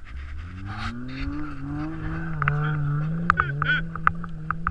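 Car engine revving up over the first couple of seconds, then held at steady revs, with a run of short, sharp high squeaks and clicks in the second half.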